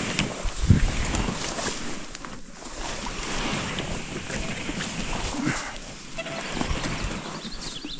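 Rustling and scraping of a canoe being handled and hauled through brush, with a heavy knock under a second in.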